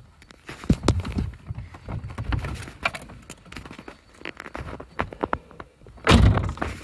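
Handling and movement noise as someone climbs out from under a car's dashboard: scattered knocks, scuffs and rustles, with a louder thump and rustle about six seconds in.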